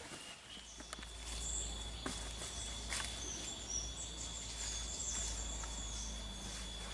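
Forest ambience: a steady high insect drone with warbling bird chirps over it, and a few sharp crackles of steps on dry leaves.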